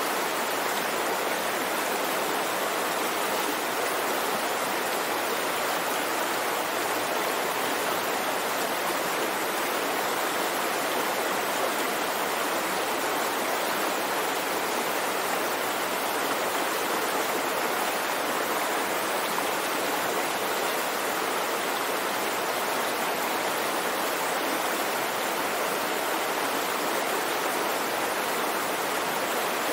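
Small river flowing, a steady unbroken rush of water.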